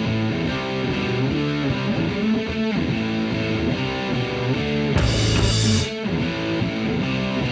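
Background rock music with electric guitar and a steady beat, with a cymbal-like crash about five seconds in.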